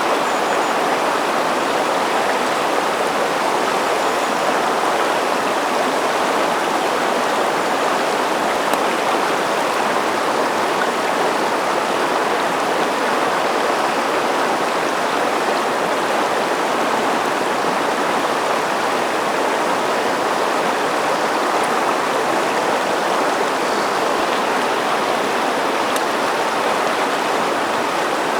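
A river flowing, a steady, unbroken rush of water.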